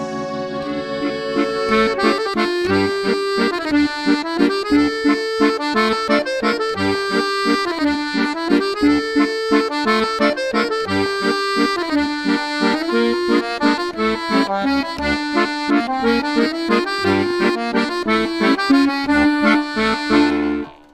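Background accordion music with a lively melody and quick, evenly repeated notes, fading out at the very end.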